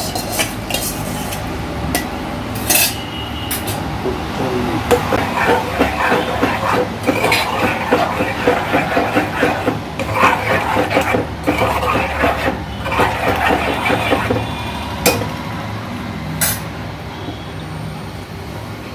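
A spoon stirring thick dal in a metal pot, scraping and clinking against the pot's sides and bottom.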